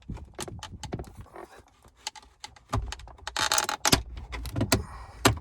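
Plastic interior trim of a 1995 Dodge Ram center console being pried up by hand: a string of irregular clicks and snaps, with a short scraping rustle about three and a half seconds in.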